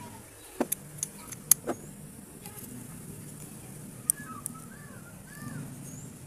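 Sharp clicks and light taps of the small rusty metal switch parts of a Panasonic MX-101SG1 blender being handled. Several come close together in the first two seconds, the loudest about a second and a half in, and one more near four seconds.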